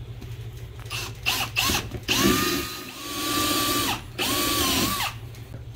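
Cordless drill boring a hole through a car's rear bumper: a few short trigger blips about a second in, then two longer runs of the motor's steady whine, each a second or two long, stopping shortly before the end.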